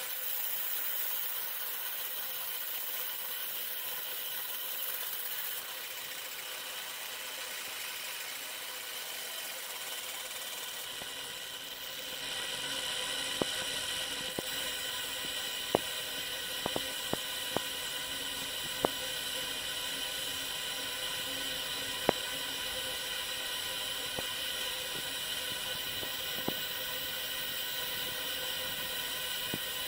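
A 100 W JPT MOPA fiber laser marking machine deep-engraving an aluminum plate: a steady hiss with high whining tones. About twelve seconds in it grows louder and brighter, and scattered sharp clicks follow.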